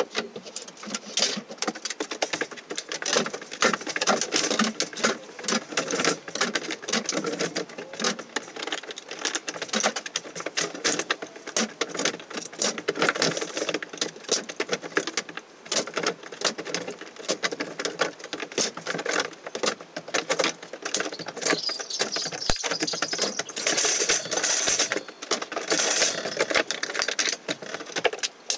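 Dense, unbroken clatter of knocks, scrapes and clicks from wooden floorboards and rubble being handled and dropped during demolition of an old wooden floor.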